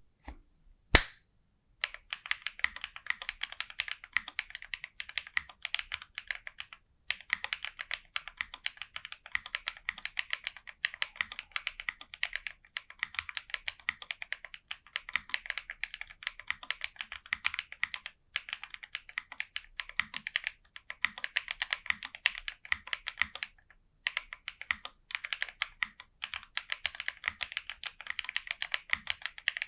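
Fast, continuous typing on a Jris65 mechanical keyboard with lubed SOTC linear switches, an FR4 plate, foam inside and GMK keycaps, with a few short pauses. A single sharp, louder click comes about a second in, before the typing starts.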